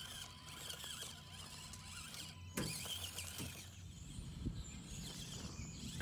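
Small electric motor and gearbox of an Axial SCX24 Deadbolt 1/24-scale RC crawler whining faintly as it drives over loose gravel, with a short knock about halfway through.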